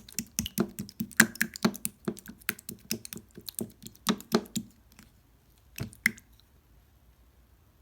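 Clear slime being squished and poked by hand, making quick wet clicking pops in a fast irregular run. The pops stop about five seconds in, with two more shortly after.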